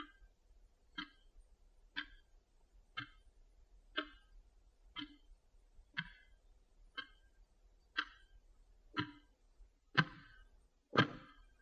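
Clock ticking once a second, timing the exam's 30-second study pause; the last two ticks, near the end, are louder.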